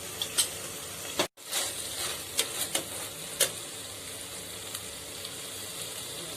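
Vegetables stir-frying in a pan over high heat, a steady sizzle, with a spoon clicking and scraping against the pan several times in the first half. The sound briefly cuts out just after a second in.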